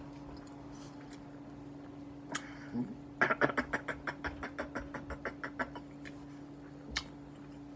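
Rapid run of wet mouth clicks from lip smacking while chewing, about eight a second for two and a half seconds and fading, with a single click before and after. A steady low hum runs underneath.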